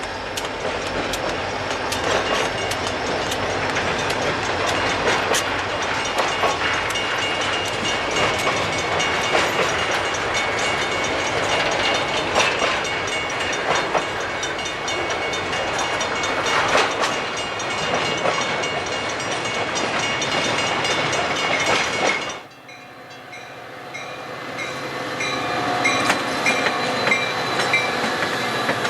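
A train's cars passing close by, wheels clicking rapidly and continuously over the rail joints. About two-thirds of the way through the sound cuts off abruptly, then a train is heard again, growing louder, with several steady high-pitched tones over it.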